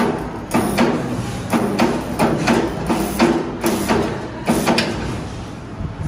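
Resistance spot welder firing over and over as it welds a steel disc onto the ends of a bird cage's iron wire ribs: a run of sharp snaps, roughly one every half second, each with a short electrical buzz from the welder. The snaps thin out near the end.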